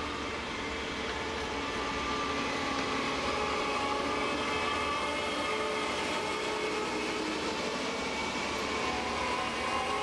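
A convoy of Ploeger self-propelled pea harvesters driving past on a road, their diesel engines and running gear making a steady heavy drone with whining tones over it.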